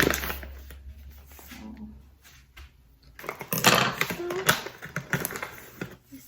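Crinkling and rustling of a foil bag of whole coffee beans being handled and opened, in irregular bursts that are loudest a few seconds in.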